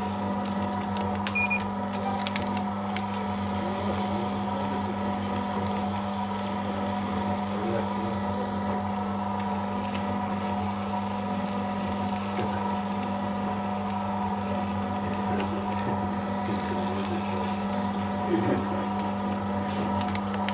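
Paper shredder motor running with a steady hum as it shreds a continuous strip of thermal-print ECG paper, with a few brief clicks a second or two in and a short louder crackle near the end.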